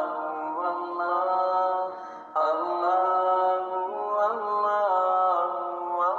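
Background music: a slow, unaccompanied vocal chant in long held notes that glide from one pitch to the next, with a brief break about two seconds in.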